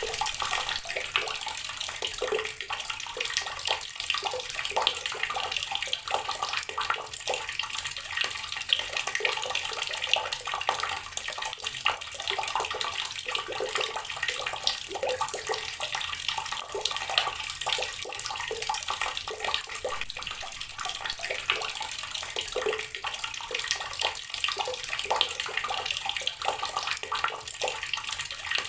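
Water from a tap pouring steadily onto rocks: a continuous splashing, thick with small quick splashes, without a break.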